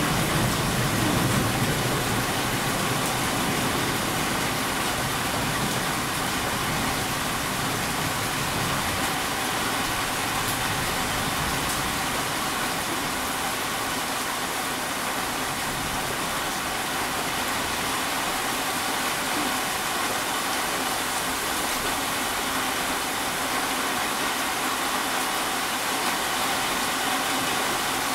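Steady monsoon rain, an even hiss with no let-up; the low rumble of thunder dies away in the first couple of seconds.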